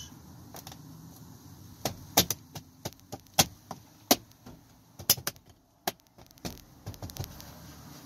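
A BMW 5 Series (F10) interior door panel being pressed back onto the door. There are about a dozen sharp plastic clicks and knocks at irregular spacing, loudest a couple of seconds in, as the panel's retaining clips snap into place.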